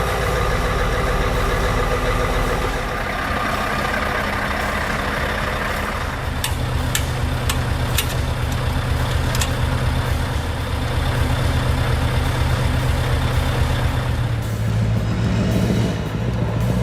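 Heavy truck's diesel engine running with a steady low drone. A few sharp clicks come between about six and nine and a half seconds in.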